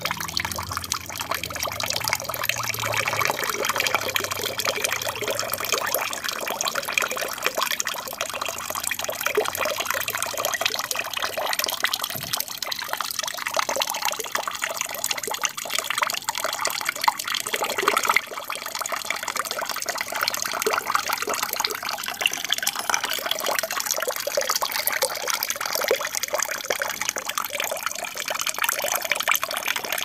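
Aquarium water running continuously, a steady trickling and splashing.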